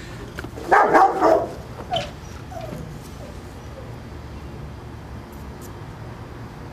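A loud, short bark-like animal call about a second in, followed by two brief fainter yelps, over a steady background hum.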